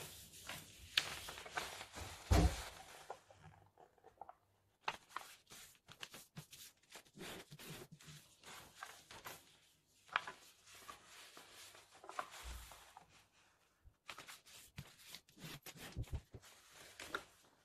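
A sheet of paper being handled and folded by hand: irregular crisp rustles and creasing clicks, with a dull thump about two seconds in.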